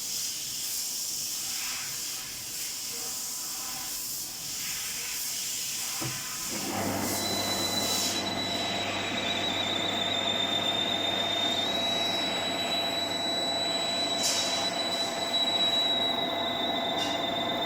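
JET GH-1440K geared-head metal lathe running with a steady hiss. About six and a half seconds in the sound grows louder and fuller, adding a steady hum and a high, constant whine.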